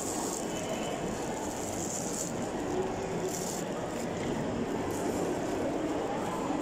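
Steady murmur of a busy mall food court: many voices and hall noise blending into one even din, with a few short crinkles of plastic food-handling gloves.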